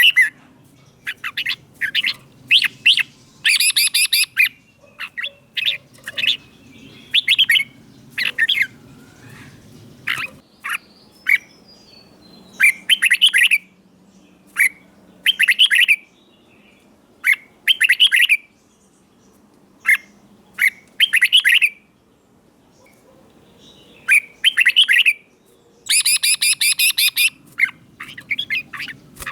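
Red-whiskered bulbul singing: short phrases delivered in bursts every second or two with brief pauses between, a few of them quicker and denser.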